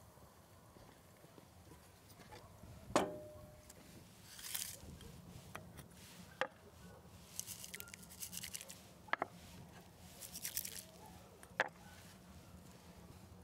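Four sharp knocks of wooden bowls set on a wooden board, with short pattering rattles of black peppercorns poured into a cast-iron pan of steaming water, over a low steady hum from the stove.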